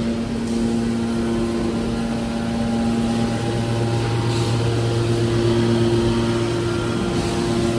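Scrap metal baler's hydraulic power unit running with a steady hum of several held tones.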